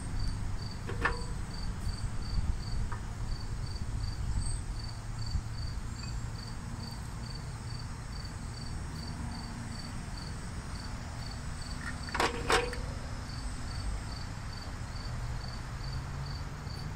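An insect chirping steadily, about three chirps a second, over a low outdoor rumble. Short knocks come from hand work on the engine, a light one about a second in and a louder one about twelve seconds in.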